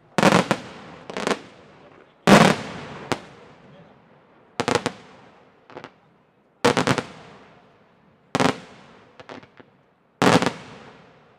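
Aerial firework shells from a Senatore Fireworks display bursting one after another: a loud bang about every two seconds, most followed by one or two smaller reports, each trailing off in a long echo.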